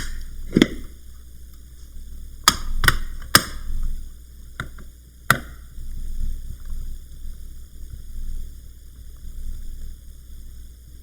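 Sharp clicks and knocks of a Sony VAIO laptop's memory compartment cover and case being put back in place, about seven of them over the first five and a half seconds, then only a faint low background.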